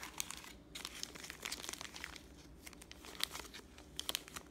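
Clear plastic zip-lock bags, each holding a small LiPo battery, crinkling and rustling in irregular crackles as a handful is lifted out of a cardboard box and handled.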